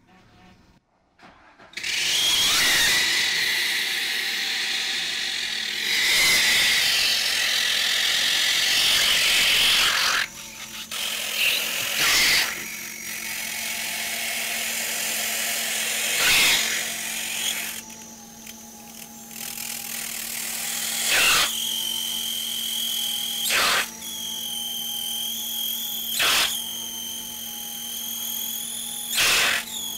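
Exhaust gas from the running Mercedes M103 straight-six hissing out of a hose taped onto the tailpipe and escaping around the peeling scotch tape instead of filling the tire through its narrow valve stem. The hiss starts about two seconds in and is loudest for the first several seconds, then turns quieter. It swells briefly every few seconds, and a thin whistle comes in during the latter part.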